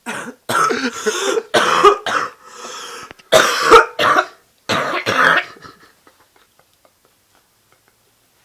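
A sick woman's hacking cough: a run of about six loud coughs and throat-clearing bursts over five seconds, then it stops. It is a painful, productive cough of a respiratory infection, bringing up yellow phlegm.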